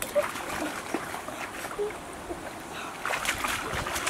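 Hands splashing and sloshing in a shallow muddy pool: a run of small irregular splashes, busier about three seconds in.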